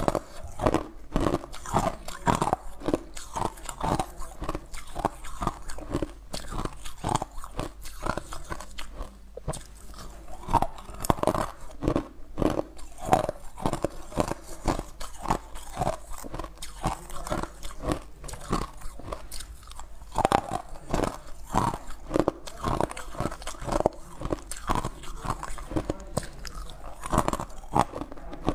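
Ice cubes being crunched and chewed in the mouth, close on a clip-on microphone: a steady run of crisp crunches, about two or three a second.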